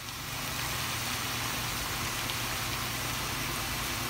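Marinated chicken legs sizzling steadily in hot ghee in a nonstick tawa, over a steady low hum.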